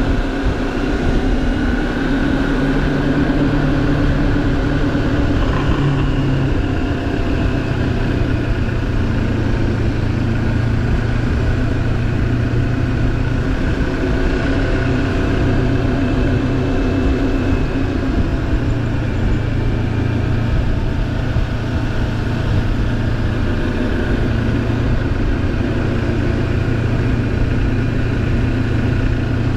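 Moto Morini X-Cape 650's parallel-twin engine running at a steady cruise on a twisty road, heard from on the bike over a steady rush of road noise; the engine note dips slightly about six seconds in, then holds steady.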